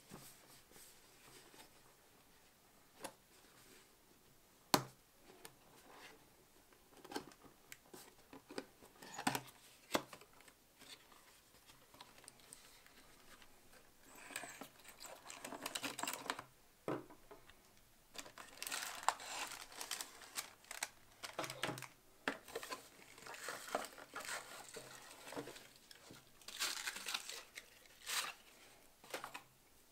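A cardboard product box being opened and unpacked by hand: a few scattered taps and clicks of the cardboard, then, from about halfway, repeated bouts of crinkling of the paper and plastic packing as the parts are pulled out.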